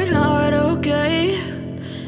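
Background music: a song with a melodic line gliding over sustained low tones, easing off near the end.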